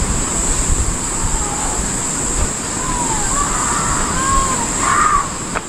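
Outdoor ambience on a high footbridge: wind rumbling on the microphone under a steady high-pitched hiss. Faint distant voices come and go in the second half.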